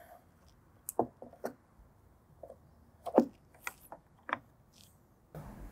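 A few light clicks and knocks, the loudest about three seconds in, as the stainless steel pole of an LED all-around navigation light is handled and seated into its plastic deck base.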